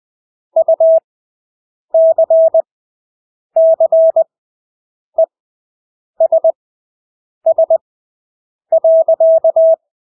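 Morse code (CW) practice tone: a single steady beep keyed into dots and dashes at 20 words per minute. Each character is sent at full speed, with about a second of silence between characters (Farnsworth spacing).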